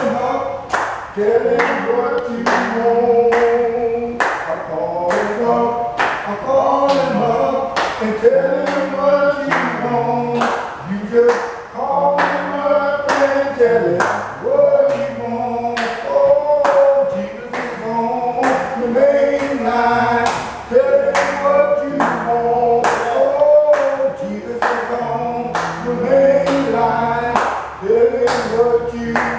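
A group of voices singing a church song together, with steady hand claps on the beat, about three claps every two seconds.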